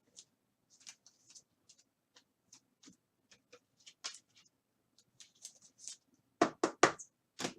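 Trading cards being handled on a table: scattered faint clicks and rustles, then four sharp taps close together near the end.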